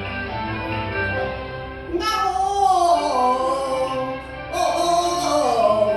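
Cantonese opera singing with instrumental accompaniment: the instruments play alone at first, then a high voice comes in about two seconds in and sings long, sliding, drawn-out notes.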